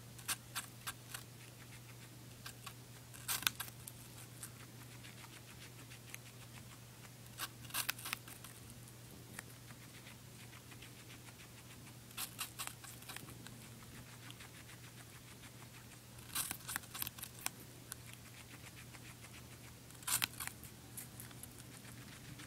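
Guinea pig chewing apple: short bursts of crisp crunching bites every few seconds, over a faint steady hum.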